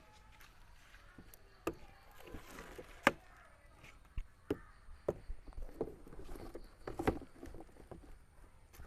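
Irregular clicks and knocks of hard plastic parts being handled and fitted together, about a dozen over several seconds, the loudest a sharp knock about three seconds in. This is likely the boat's oar being assembled.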